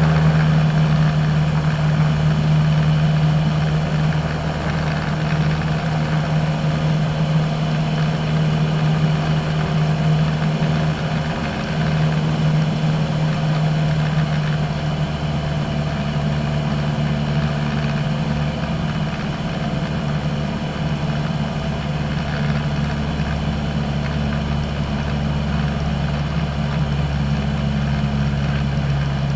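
Single-engine light aircraft's engine and propeller droning steadily in cruise, heard from inside the cockpit, with slight dips in level a couple of times.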